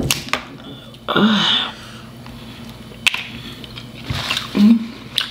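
Close-up eating sounds from a seafood boil: a few sharp clicks and wet smacks from chewing and picking at crab and shrimp, with two short hums.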